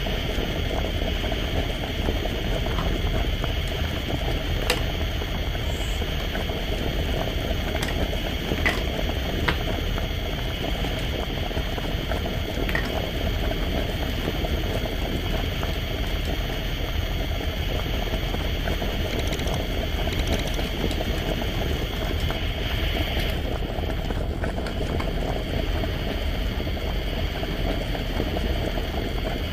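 Toy cooktop with a misting pot making a steady bubbling, boiling sound, with a few light clicks in the first few seconds.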